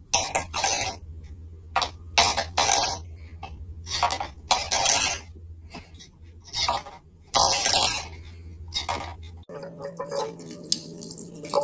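A cat pawing a stainless steel bowl across a wooden floor: the metal bowl scrapes and knocks in about ten short bursts. Near the end the sound changes to a low steady hum.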